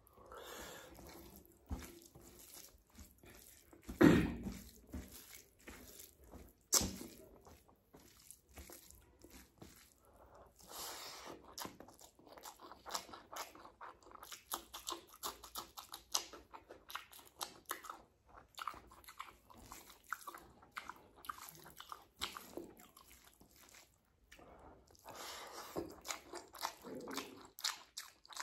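Close-miked mouth sounds of a person eating rice and egg curry by hand: steady chewing and biting with many quick smacking clicks, and two louder sharp sounds about four and seven seconds in.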